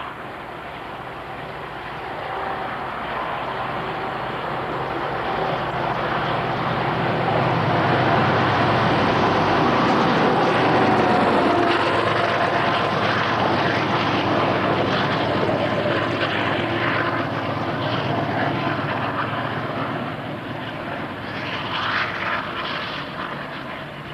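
Locomotive hauling double-deck passenger carriages approaching and passing close by: a steady hum and whine that builds to its loudest as it goes past, the whine dropping in pitch as the locomotive passes, followed by the clatter of the carriages' wheels.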